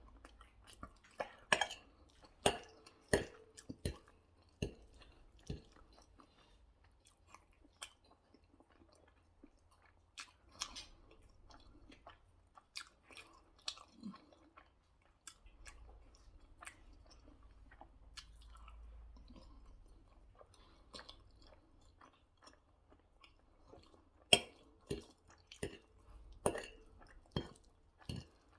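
A person chewing and biting food close up: irregular sharp clicks and mouth sounds, busiest in the first few seconds and again near the end, quieter in between.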